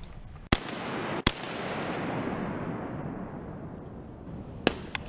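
Two shotgun shots fired in quick succession, under a second apart, their blasts echoing and rolling off through the flooded timber for a few seconds. Two sharp clicks near the end.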